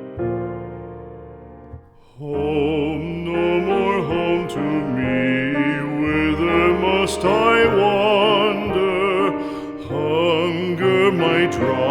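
Music: a piano chord dies away, then about two seconds in a singer with strong vibrato begins a slow song over piano accompaniment.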